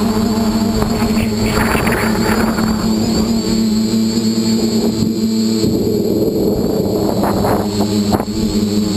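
Dead-cat 450 quadcopter's electric motors and propellers buzzing steadily in flight, heard through the camera on board. Rushing wind noise swells twice, at about two seconds in and again around seven seconds.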